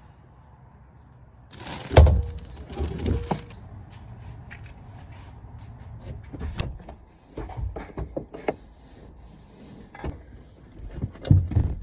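A loud thump about two seconds in, followed by scattered knocks, clicks and rustles of handling around a car.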